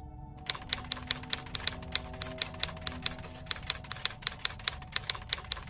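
Typewriter sound effect: a quick, uneven run of key strikes, about five a second, starting about half a second in.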